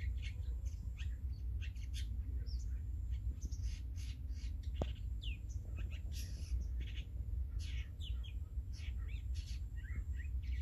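Small birds chirping and twittering: many short, quick calls, some sweeping up or down in pitch, over a steady low rumble.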